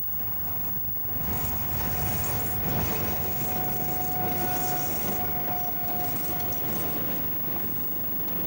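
RENFE series 276 electric locomotive and its freight train of coil wagons passing close by: a loud rumble of wheels on the rails that swells about a second in, with a steady high whine through the middle of the passage.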